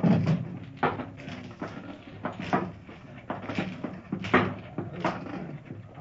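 Radio-drama sound effect of ship's boats being lowered away: a run of irregular wooden knocks and thumps, about one or two a second.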